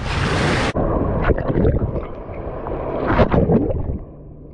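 Small lake waves washing over feet in shallow water, with wind buffeting the microphone. About 0.7 s in it cuts off abruptly to a duller sloshing and splashing of waves lapping at the camera held just above the water, with a few louder splashes, easing off near the end.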